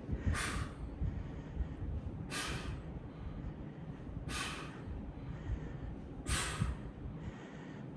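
A person breathing out forcefully through a set of weight-lifting reps: four sharp breaths, one about every two seconds, one with each rep.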